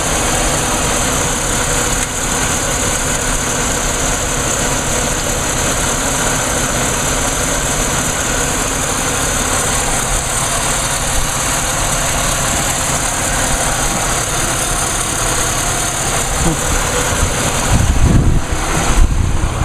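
Engine bay of a 1999 Pontiac Grand Am GT: the 3400 V6 idling steadily with both electric cooling fans running at low speed and the A/C compressor engaged, a constant hum and hiss. Near the end it grows louder, with some irregular low thumps.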